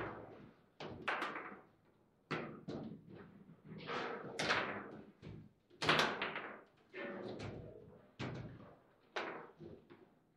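Table football rally: about a dozen irregular sharp knocks and clacks as the ball is struck by the rod figures and hits the table, the loudest about six seconds in.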